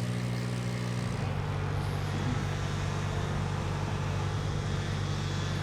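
An aerial lift's engine runs steadily with a low hum, its note shifting slightly about a second in.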